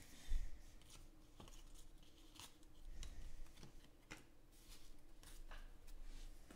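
Trading cards handled and laid down on a table: faint, scattered slides, flicks and soft taps of card stock.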